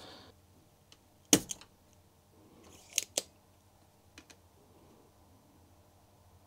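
Spring-loaded solder sucker (desoldering pump) firing with one sharp snap a little over a second in, pulling molten solder off a capacitor's joint, followed by a few lighter clicks around three seconds in.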